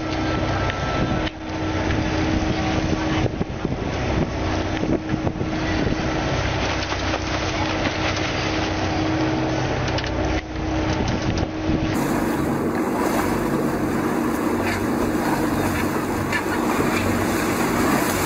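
A boat's engine running steadily, with wind buffeting the microphone and sea water rushing along the hull.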